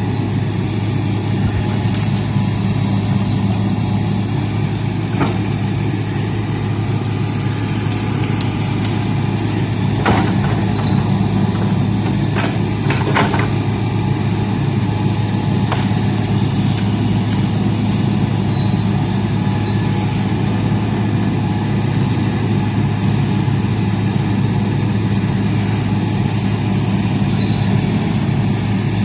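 Diesel engine of a Hitachi excavator running steadily at a low, even pitch, with a few short sharp cracks about ten seconds in and again a few seconds later.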